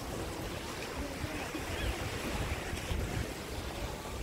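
Small sea waves breaking and washing up a sandy beach, a steady surf wash, with wind rumbling on the microphone.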